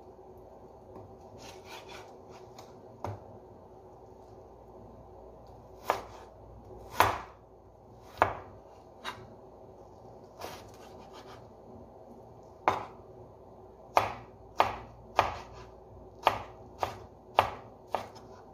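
Chef's knife chopping raw chicken breast into small dice on a cutting board: sharp knocks of the blade on the board, a few scattered at first, then a quicker run of about ten near the end.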